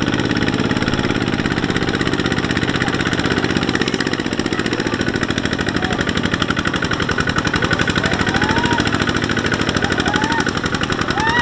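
Single-cylinder diesel engine of a two-wheel walking tractor chugging steadily under load as it drags a loaded trailer through deep mud.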